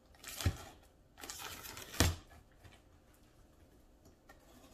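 A knife slicing through packing tape along a cardboard box's seam: two short rasping cuts, each ending in a thump on the box, the second thump the loudest, about two seconds in.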